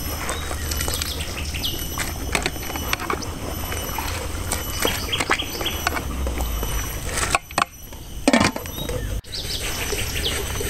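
Birds chirping over a steady low rumble, with scattered clicks of a ladle stirring a large pot of mung beans at a rolling boil.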